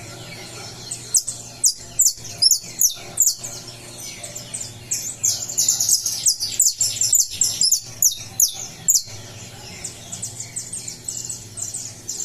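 Saffron finch (canário-da-terra) singing a fast, continuous string of sharp, high chirps and trills, busiest in the middle.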